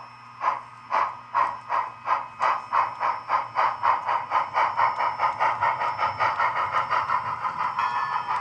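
Tsunami sound decoder in an HO scale model 4-6-0 steam locomotive playing steam exhaust chuffs through its small speaker, timed to the driving wheels by a cam. The chuffs start at about two a second and speed up steadily as the model accelerates, until they nearly run together.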